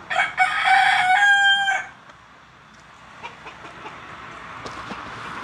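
A rooster crowing once, a single call of under two seconds that ends on a held note.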